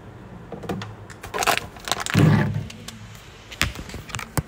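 Handling noise as the camera is picked up and moved: rustling and scraping, a heavy thump about two seconds in, and two sharp clicks near the end.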